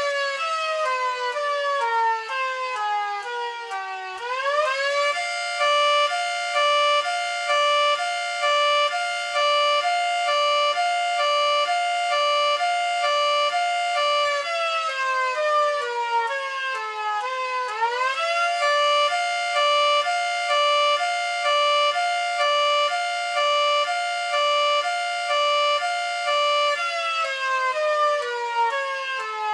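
Miniature model of a 3T22 three-tone siren sounding an undulating hi-lo: two chords switch back and forth about every half second while the motor coasts down in pitch, winds quickly back up about four seconds in, holds, coasts down again, winds up again, and starts dropping once more near the end.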